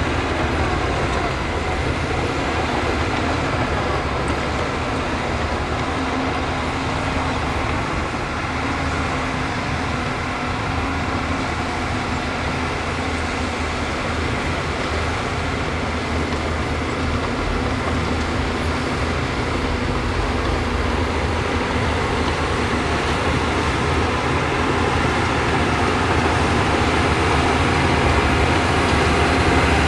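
Heavy diesel earthmoving machinery running steadily under load, a continuous low engine rumble with mechanical clatter, growing slightly louder near the end.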